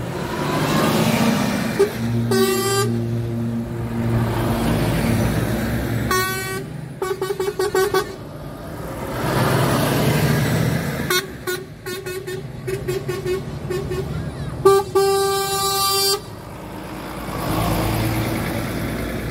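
Trucks in a convoy driving past close by and sounding their air horns: a short blast, then bursts of quick toots, and a loud blast about a second and a half long near the end. Engine and tyre noise from the passing trucks and wind on the microphone run underneath.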